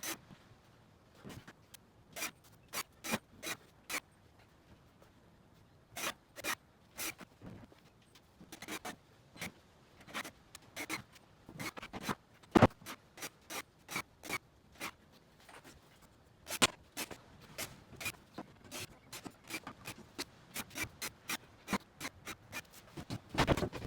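A series of short, sharp clicks and light scrapes at irregular intervals, with one louder knock about halfway through.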